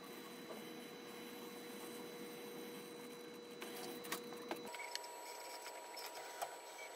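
Sped-up recording of an industrial robot arm at work: a faint steady mechanical hum with one held tone and a few small clicks. About two-thirds of the way through, the tone jumps up about an octave as the playback speed doubles.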